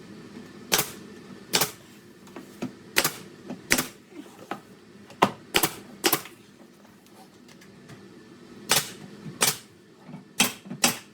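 18-gauge brad nailer firing 1-inch brads: about eleven sharp shots, spaced irregularly, with a pause of about two seconds past the middle.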